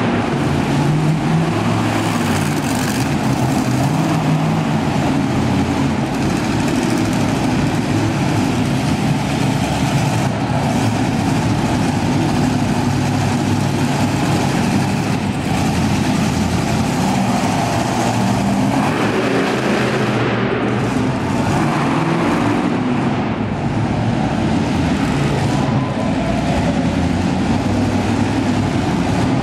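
Monster truck engine running loud, revving up and down as the truck drives, its pitch rising and falling throughout.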